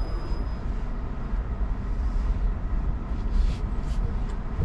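Rivian R1T electric pickup rolling slowly over a dirt trail: a steady low rumble of tyres and body vibration with no engine note, with a few brief hissing noises about three to four seconds in.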